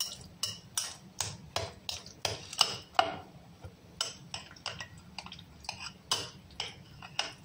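Metal table knife clinking and scraping against a glass bowl while scooping mashed avocado, a run of short sharp clicks, about two or three a second, fewer and softer after about four seconds.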